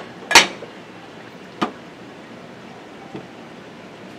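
Sharp knocks on a cutting board as a kitchen knife and a ceramic plate are set down: one loud knock about a third of a second in, a second about a second later, and a faint tap near the end.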